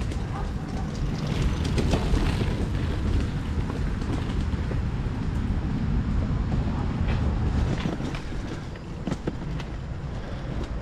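Low, uneven rumble of wind buffeting the microphone, with a few light clicks and rattles scattered through it.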